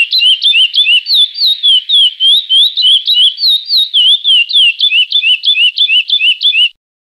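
Male curió (chestnut-bellied seed finch) singing the classic 'praia' song: a fast, unbroken run of clear whistled notes sliding up and down, about five a second, that stops abruptly near the end.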